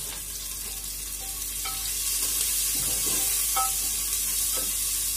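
Sliced onions sizzling as they fry in an aluminium pressure cooker, being fried to a light pink. A wooden spatula stirs them, scraping and knocking against the pot a few times, and the sizzle grows louder about two seconds in.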